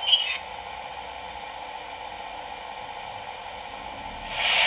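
Steady steam hiss from the sound decoder of an HO-scale model RENFE 'Mikado' 141-2109 steam locomotive, through its small onboard speaker, with a short high tone at the start. The hiss grows louder near the end.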